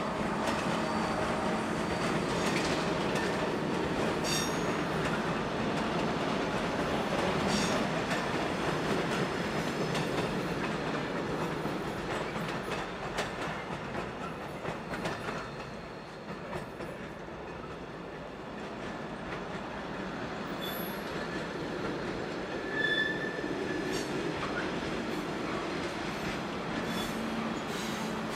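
Freight train of track-maintenance wagons and ballast hoppers rolling slowly past: steady wheel rumble with clacks over the rail joints and brief wheel squeals, one short high squeal about three quarters of the way through.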